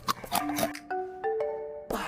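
Background music: a melody of short, stepping mallet-like notes, with a few sharp noisy sounds in the first half-second.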